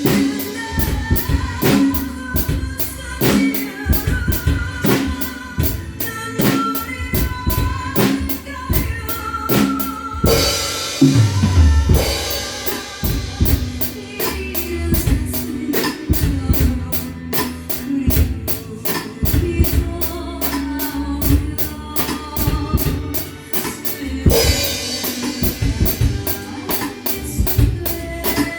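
A drum kit played along to a recorded backing track: a steady beat of kick drum, snare and cymbal strokes over melody and bass. Two cymbal crashes ring out, one about a third of the way in and one near the end.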